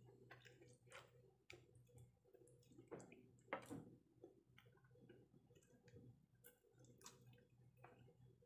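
Near silence with faint, scattered clicks and taps of a metal fork against a plate and food as steamed fish siomai is speared and lifted, with soft mouth sounds of eating near the end.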